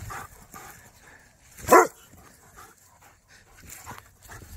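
Great Dane puppy giving a single short bark during play, about two seconds in.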